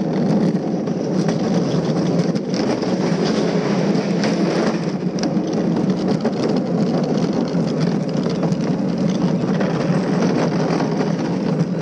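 Gravity luge cart rolling fast down a concrete track: a steady rumble from its wheels on the concrete, with scattered clicks and knocks.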